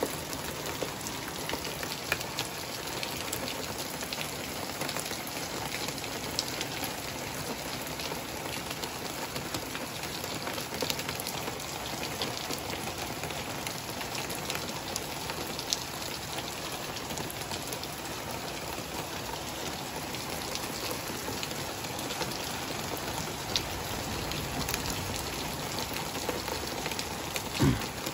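Rain falling steadily, with scattered sharp taps of drops hitting a nearby surface. There is a short thump near the end.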